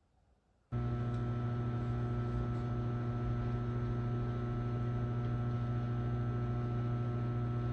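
Microwave oven switching on about a second in and running with a loud, steady electrical hum.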